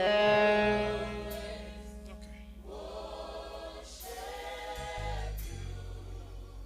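Live gospel worship music: sustained keyboard chords over a bass line, with a choir singing two long held phrases in the middle.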